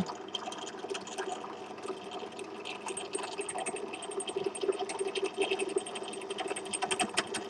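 Pedestal drill running, with a boring tool lowered into the cast-iron exhaust port of a Minarelli AM6 two-stroke cylinder: a steady motor hum with rapid light ticking as the cutter catches and scrapes the side of the port, a little louder near the end.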